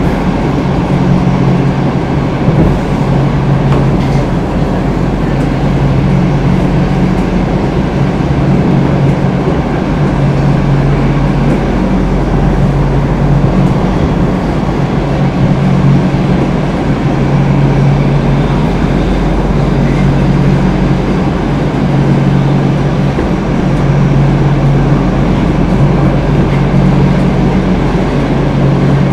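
Stockholm Metro C6 subway car running at speed, heard from inside the passenger compartment: a loud, steady running rumble with a low hum that swells and fades every few seconds.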